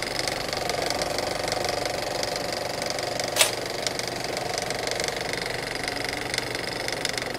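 A small motor running steadily with a light rattle, and a single sharp click about three and a half seconds in.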